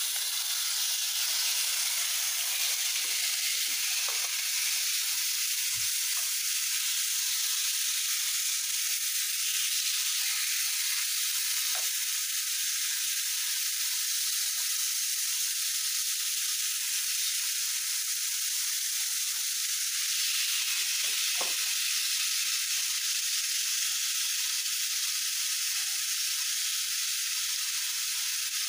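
Diced chicken breast, coated in an oil-and-milk marinade, frying in a pan: a steady sizzle, with a few faint taps now and then.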